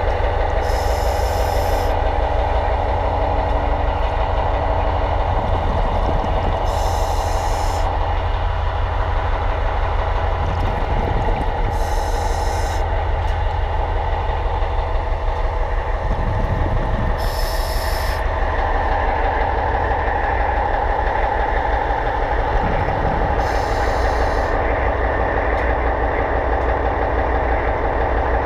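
Underwater, a steady mechanical hum from the propeller-polishing machine running. Short hissing bursts come about every five to six seconds.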